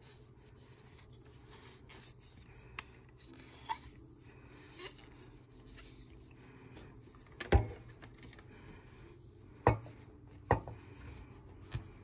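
A cotton pad rubbing softly over a brass-and-black telephone handset as it is wiped clean, with a few sharp taps and knocks as the handset is handled. The loudest knock comes just past halfway, and three lighter ones follow near the end.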